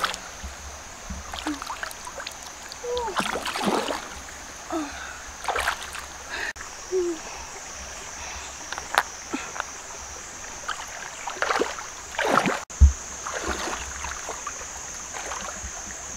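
Shallow stream water splashing and sloshing in short, irregular bursts as hands reach into the stream bed to pick up freshwater mussels, with feet wading. A steady high insect drone runs underneath.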